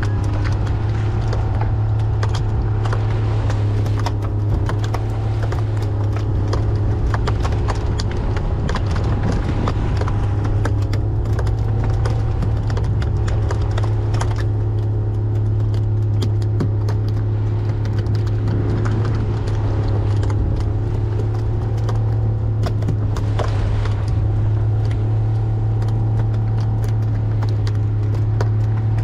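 Small fishing boat's motor running steadily under way, a constant low drone with frequent sharp knocks and clatter throughout.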